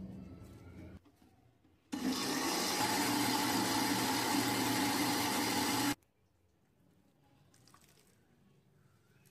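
Countertop electric blender running for about four seconds, churning a watery mixture in its glass jar: a steady motor whine over the rush of swirling liquid that starts abruptly about two seconds in and cuts off sharply.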